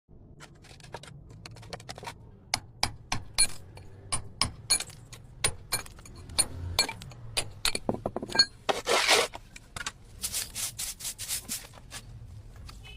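A hand tool working a plastered wall: a series of sharp taps and clicks, then a longer scrape about nine seconds in, followed by a quick run of short scraping strokes.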